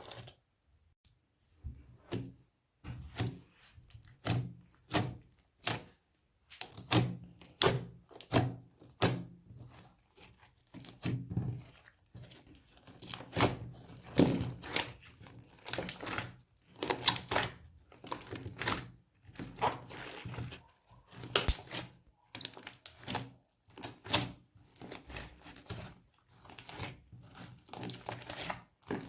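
Slime being worked by hand: an irregular string of short sticky squelches, pops and tearing sounds as it is pressed and pulled apart.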